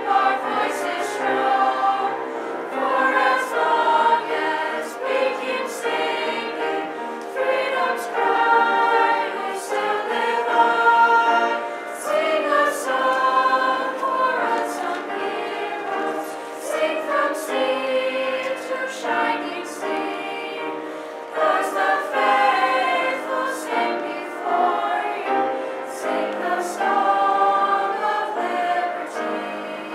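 Mixed-voice student choir singing with several voice parts, holding long notes and moving slowly from note to note.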